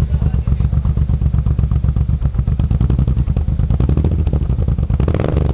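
Suzuki Intruder motorcycle engine idling through an aftermarket Scorpion sport exhaust: a steady, deep, rapid pulse.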